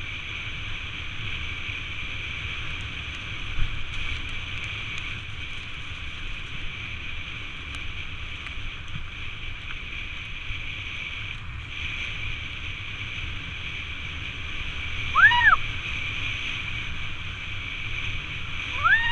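Wind rushing over a helmet camera's microphone as a Ghost ASX 4900 mountain bike rolls fast down a rough dirt track, with steady tyre noise. Near the end come two short squeals, about four seconds apart, each rising and then falling in pitch.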